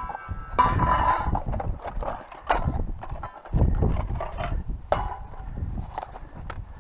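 Wind buffeting the microphone in strong gusts, with clicks, knocks and a brief metallic ring as camping gear (stove, fuel canister, mug) is handled.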